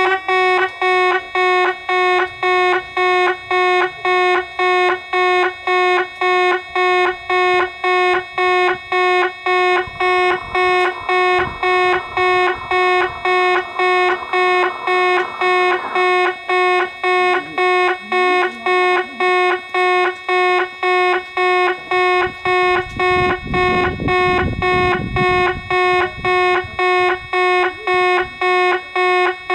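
Japanese railway level-crossing warning bell ringing in a steady, evenly repeating ding-ding pattern of just under two strokes a second, warning that a train is approaching.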